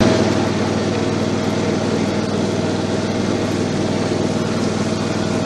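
Small engine running at a steady speed as the vehicle carrying it drives along, an even hum under a loud, constant rushing noise. It cuts in abruptly at the start.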